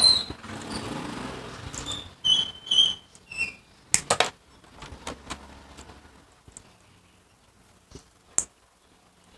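Small side cutters snipping blue vinyl insulating sleeves of crimp terminal clips: a few sharp clicks, two close together about four seconds in and two more near the end. Short squeaks of the plastic sleeves being worked come before the first cuts.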